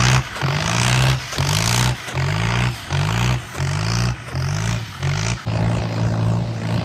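Indo Farm tractor's diesel engine running, its sound dipping and recovering in a regular pulse about every 0.7 seconds, then holding steady near the end.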